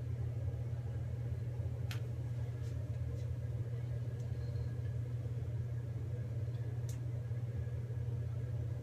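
Steady low hum, with two faint clicks of small plastic toilet parts being handled, about two seconds in and near the end.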